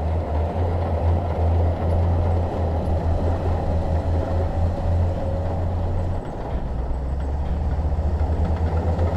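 Bulldozer's diesel engine running steadily under work, with a low throb and a faint whine above it.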